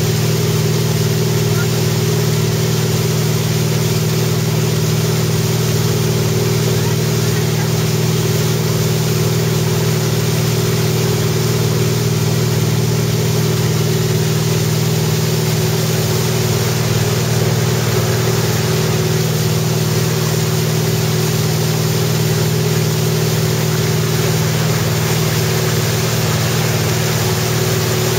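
Towboat's engine running at a steady speed, with the rush of the churning wake water behind it.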